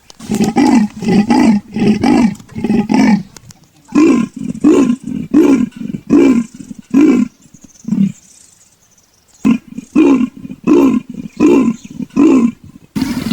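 Leopard's sawing call: three bouts of rhythmic, rasping grunts, about three a second, with short pauses between the bouts.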